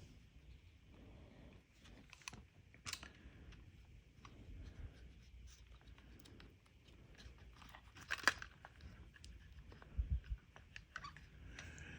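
Hands working on a small plastic radio faceplate and its circuit board: scattered light clicks and taps of plastic parts, with a sharper click about two-thirds of the way through and a dull knock soon after.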